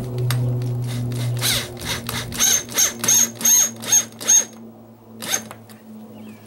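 Corded electric drill driving screws: the motor runs steadily for about two seconds, then comes in about six short bursts as the trigger is feathered to snug the screw, with one more burst near the end.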